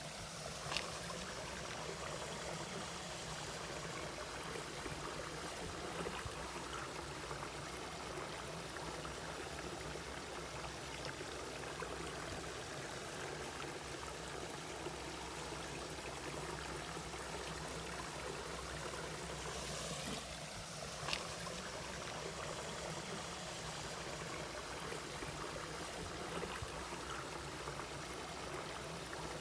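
Valley stream water flowing steadily. A short sharp click is heard about a second in and again about 21 seconds in.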